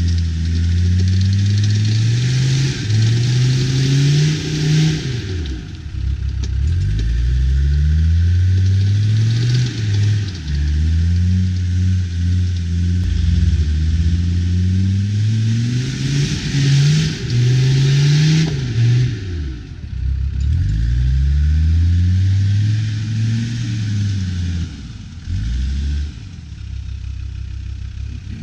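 Off-road 4x4's engine revved up and down over and over, its pitch climbing and falling every second or two, with stretches of rushing hiss over it.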